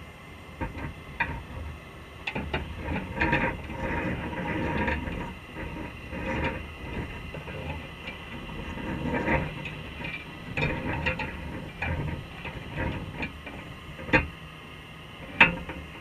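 Irregular clicking, knocking and rattling on a wire crab pot underwater, heard through a camera's waterproof housing, with two sharp clicks near the end as a Dungeness crab reaches the trap.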